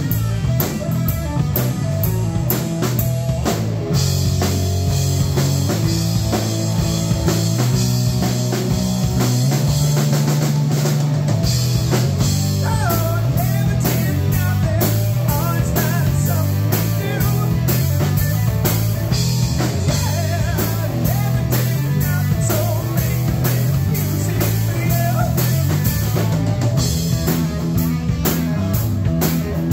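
Live rock band playing an instrumental stretch with no singing: distorted electric guitar, electric bass and a drum kit keeping a steady beat, with bending lead-guitar notes around the middle.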